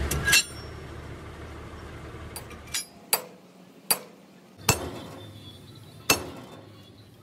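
Sharp metal-on-metal clinks and knocks, about six at uneven intervals, as steel parts or tools strike each other during truck bogie shaft repair work, over a low hum that drops out for a couple of seconds in the middle.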